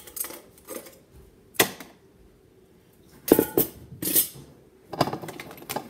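Ice cubes tipped from a stainless steel ice bucket into a blender jar of watermelon chunks: a handful of separate clinks and knocks with short pauses between them.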